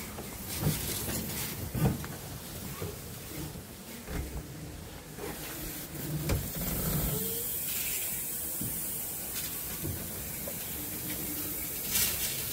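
Small narrow-gauge steam locomotive hissing steam as it eases slowly up to a carriage to couple on. A few light knocks come in the first couple of seconds, and a steadier hiss sets in about halfway through.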